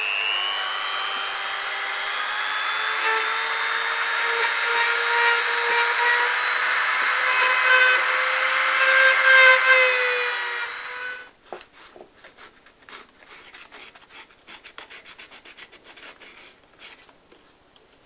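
Handheld rotary multi-tool spinning at high speed with a steady high whine as it grinds cured epoxy putty inside a steering wheel hub. It cuts off about eleven seconds in, followed by faint light clicks and scrapes of handling.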